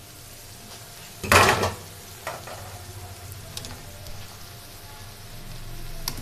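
Green beans and chicken sizzling in a pan on low heat as the lid comes off and a spatula stirs through them, with small scrapes and clicks. About a second and a half in there is one short, loud burst of noise.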